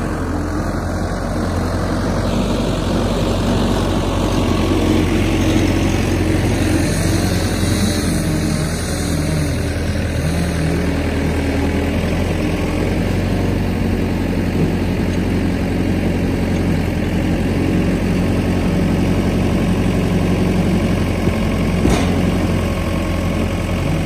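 Skid steer engine running while the machine drives up with a bucket load of oak blocks and raises the bucket over a truck bed, the engine note rising and falling partway through.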